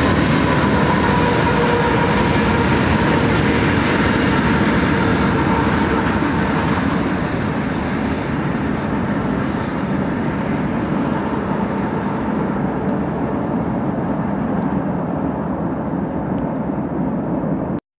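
Freight train of mixed cars rolling past and moving away: a steady rumble and rattle of steel wheels on the rails. A thin steady whine sounds over it in the first few seconds, the sound eases a little after about seven seconds, and it cuts off suddenly near the end.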